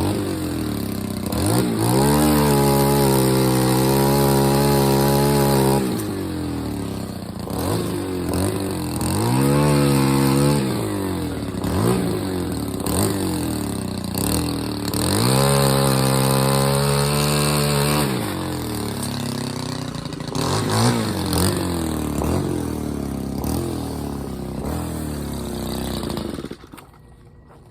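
Small petrol engine revving up and holding at high revs three times, settling back to a lower run between, then cutting out near the end.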